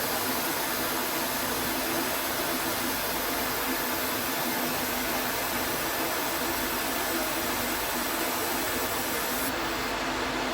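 Manual lathe running steadily: a constant whir with a faint hum, likely while machining stainless steel parts.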